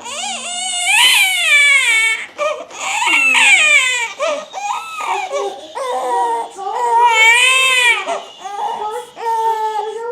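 Two-month-old baby boy crying hard: a run of about five loud, high wails, each rising and falling in pitch, with short catches of breath between them.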